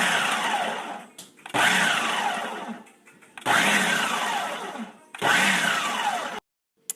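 Electric kitchen appliance motor run in four short pulses of about a second and a half each, its pitch falling during each pulse, shredding cooked chicken.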